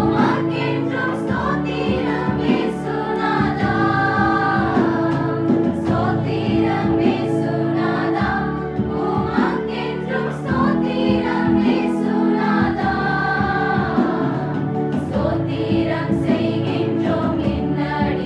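A small women's choir singing a Christian song together, many voices in unison over sustained chords.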